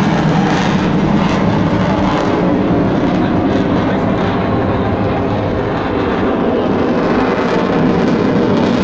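Jet aircraft flying an aerobatic display pass, its engine heard as a steady, unbroken rushing noise.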